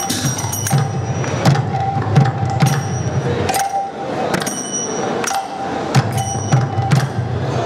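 Three mridangas, two-headed clay drums, playing a rhythm together: deep bass-head strokes alternate with ringing treble-head strokes. Kartal hand cymbals clash along with them.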